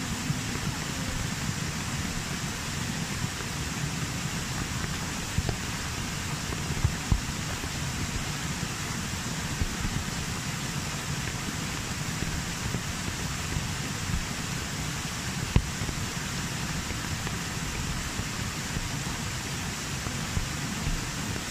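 Steady rushing of falling water from a small rocky waterfall and rain, with a few sharp ticks.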